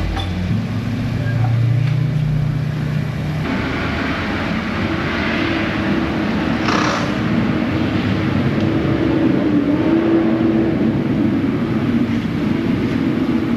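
2003 Toyota Corolla's engine running, with a low hum that steps up to a higher, steadier running a few seconds in and a short hiss about seven seconds in.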